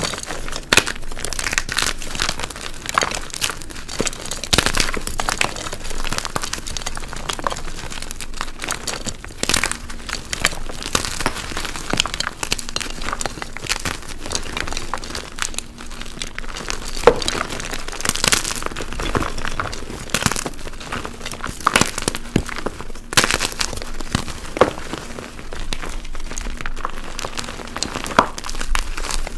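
Blocks of dyed gym chalk being crushed, a continuous run of irregular crunching and crackling as the blocks break apart and crumble to powder.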